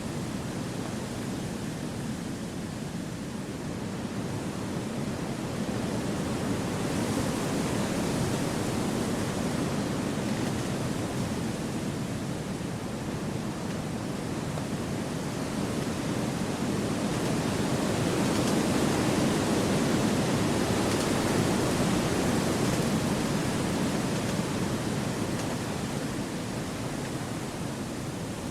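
Wind rushing through forest trees as a steady noise that swells and eases in slow gusts, loudest about two-thirds of the way through.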